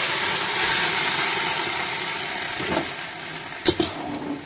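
Boiled chana dal hitting a hot kadai, sizzling with a loud hiss that slowly dies down. Near the end come a couple of sharp clanks of a metal spatula against the pan as the dal is stirred.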